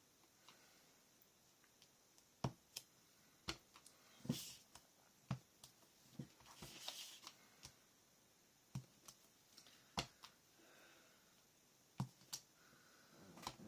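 Scattered sharp taps and clicks of an acrylic stamp block being knocked onto an ink pad and pressed onto paper, with brief soft rustling in between.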